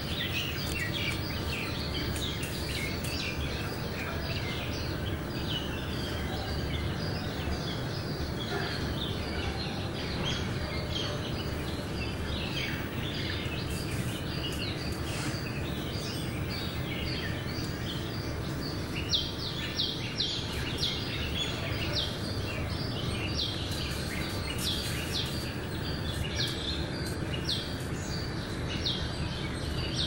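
Many short, high bird chirps over a steady background noise, the chirping busier and louder in the second half.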